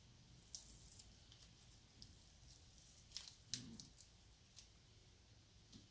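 Faint, scattered scratches and clicks of fingers picking stuck-on foam insulation off a pack of nickel-cadmium battery cells; the foam is coming off with difficulty.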